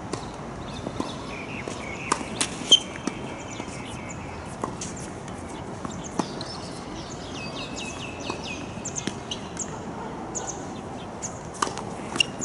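Tennis balls struck by rackets and bouncing on a hard court: scattered sharp knocks, the loudest about three seconds in. Birds chirp in short high runs in the background.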